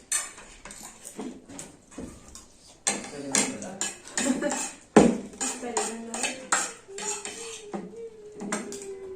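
Spoons clinking and scraping against bowls of rice pudding as several people eat, with a sharper, louder clack about halfway through.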